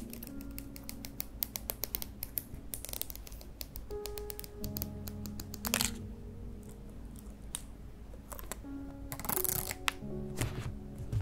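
Steel craft scissors snipping a clear plastic flower sticker: a few sharp cuts and small handling clicks over soft background music with held notes.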